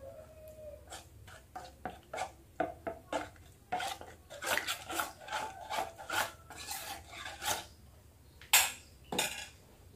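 Metal spoon stirring and scraping thick flour-and-water batter in a stainless steel bowl, in short irregular strokes about one or two a second, with a couple of louder knocks near the end.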